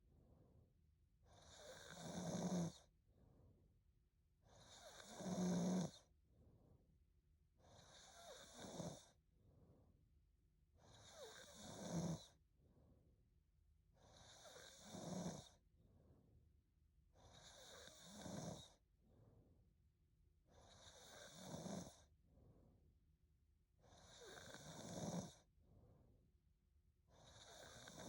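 A young woman snoring steadily in her sleep, about one snore every three seconds, each swelling to a louder finish, with soft breath sounds between them.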